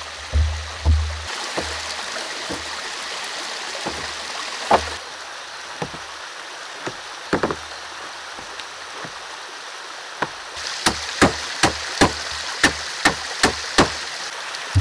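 A hammer drives nails into wooden floor planks: a few single knocks early, then a quick, even run of strikes near the end, about three a second. Between the blows a stream rushes steadily.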